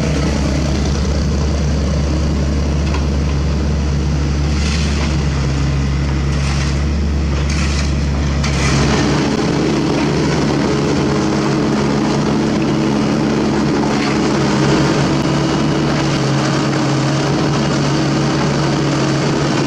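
A steady deep engine rumble, which about nine seconds in gives way to a Sany SY75 mini excavator's diesel engine running close by, a steady drone made of several held tones.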